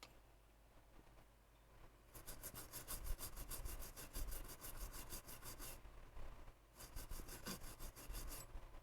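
Faint, quick back-and-forth scrubbing on the freshly soldered circuit board, about seven strokes a second, in two runs with a short pause between them.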